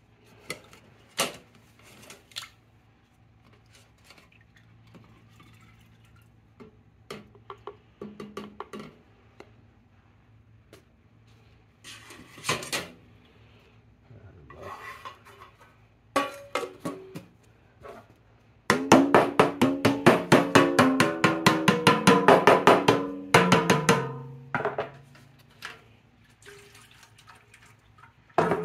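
Metal clinks and knocks as vice grips are handled in a metal paint can of chemical stripper and its lid is pressed on. Then comes a loud, fast run of ringing strikes lasting about five seconds, with the pitch falling as it ends.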